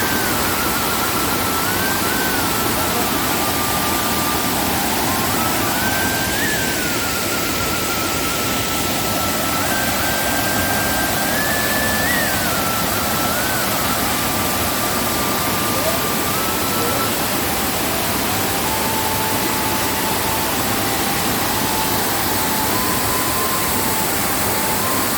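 A waterfall in rainy-season flood, its heavy water giving a loud, steady rushing roar. A thin, drawn-out tone steps slowly up and down in pitch over it.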